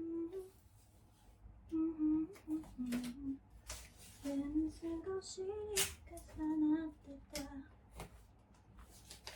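A woman humming a tune softly to herself in a small room. The melody holds and steps between notes, with short pauses. A few sharp clicks and knocks come in between, the loudest about six seconds in.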